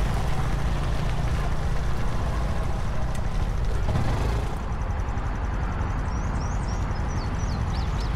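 Honda CT125 Trail's air-cooled single-cylinder engine running steadily under way, a constant low rumble. In the second half a bird chirps a quick string of short high notes.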